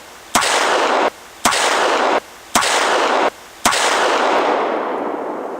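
Four gunshots, about a second apart, each followed by a loud rush of echo; the last one fades out slowly.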